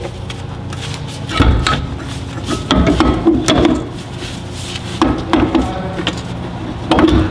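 Knocks, clunks and scraping as gloved hands handle the metal front strut and steering knuckle of a Mercedes Sprinter 4x4, in four short clusters over a steady low hum.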